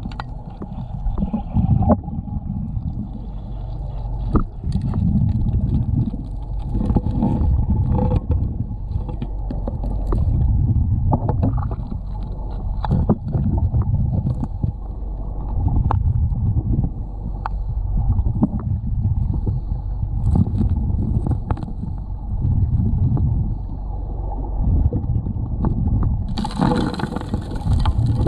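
Gold suction dredge heard underwater: a steady muffled drone from the running dredge, with a low surging rumble every couple of seconds and scattered clicks of gravel and rocks knocking as they are worked toward the intake. Near the end a brighter hiss comes in.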